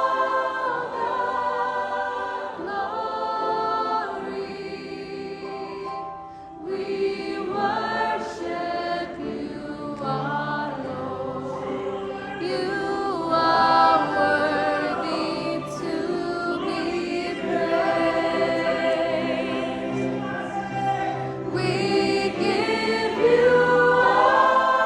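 Gospel choir singing a worship song in held chords, many voices together, with a brief drop in loudness about six seconds in.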